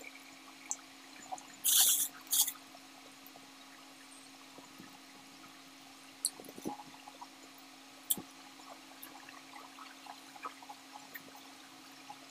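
A person eating juicy lansones: soft wet mouth smacks and small clicks as the fruit is peeled and chewed, with a brief crinkling rustle about two seconds in.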